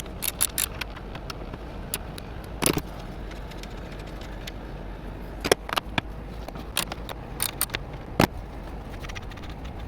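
Scattered metallic clicks and clinks of hand tools working the nuts off the inner cover of a rooftop RV air conditioner, a few of them ringing briefly, over a steady low rumble.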